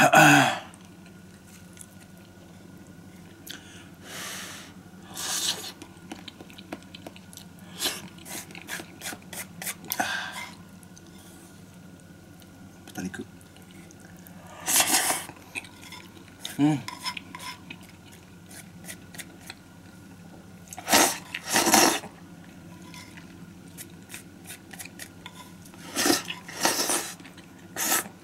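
Eating a ramen hot pot: chopsticks and spoon clicking against the pot and bowl, chewing, and several louder bursts of slurping noodles and broth.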